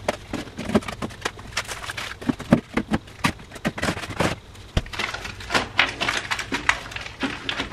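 Aluminium foil food trays being handled and stacked: irregular clicks, taps and crinkles, several a second.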